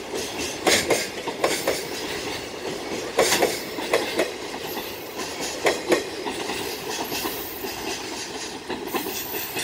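Koki container flat wagons of a freight train rolling past, their wheels clattering over rail joints in clusters of sharp clacks over a steady rumble. The clacks are loudest in the first six seconds.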